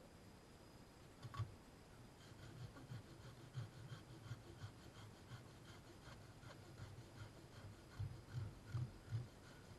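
Campfire wood crackling softly with irregular small pops, the sharpest about a second and a half in and a cluster near the end. A faint steady high insect trill sounds behind it.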